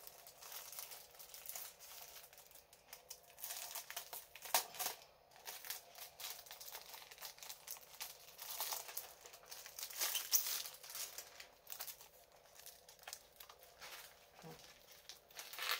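Clear plastic packaging around a diamond painting kit crinkling and rustling as it is handled and opened, in irregular crackles with louder stretches about four and a half and ten seconds in.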